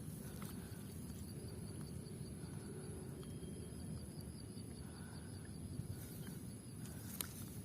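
Outdoor rural ambience: a steady low rumble with an insect chirping in a fast, even pulse through the middle of the stretch, and a few faint clicks.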